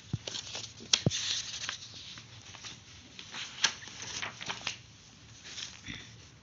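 Paper pages of a textbook rustling and flicking as they are turned, in short irregular spells with a few sharper flicks.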